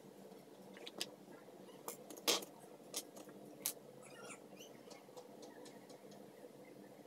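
Soft rustles and a few sharp clicks of hands handling a chiffon headscarf and its pin close to the microphone, the loudest about two seconds in, over a faint steady hum.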